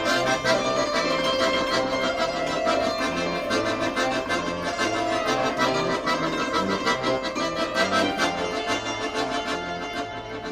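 Accordion playing a traditional-style tune over a steady, rhythmic bass pattern.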